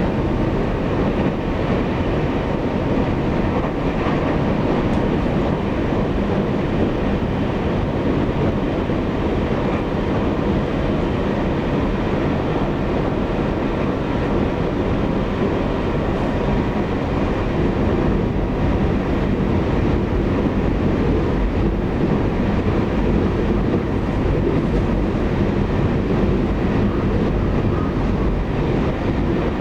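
Taiwan Railways EMU800 electric multiple unit running along the line, heard from inside the passenger cabin: a steady rumble of wheels on the track with a faint steady whine.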